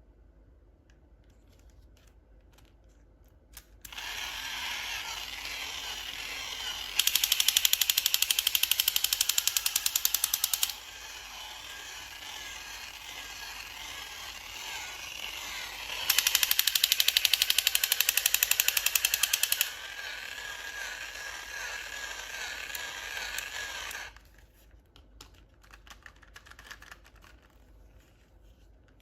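A whirring mechanical sound that runs for about twenty seconds. It bursts twice into loud, fast rattling clicks for about four seconds each.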